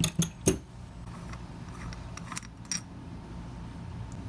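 Small metal clicks and clinks of tools and carburetor parts being handled while a brass jet is removed from an S&S Super E carburetor body. There are three sharp clicks in the first half second, the loudest about half a second in, then two fainter ones about two and a half seconds in.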